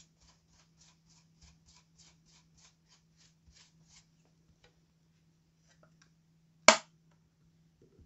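Makeup brush swept rapidly over a pressed highlighter palette, a soft scratchy swish about four times a second that stops about four seconds in. Near the end comes a single sharp click, the loudest sound.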